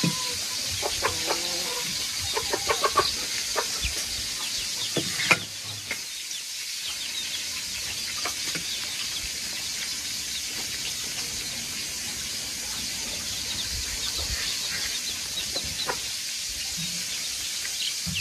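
Chickens clucking in the background over a steady high hiss, with a few short calls in the first few seconds and scattered brief chirps after.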